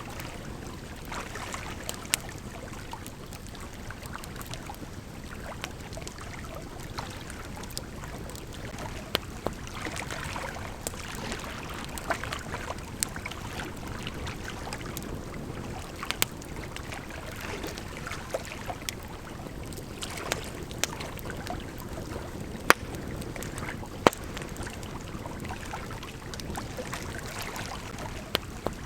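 Campfire crackling, with irregular sharp pops, over the steady rush of a gently flowing river.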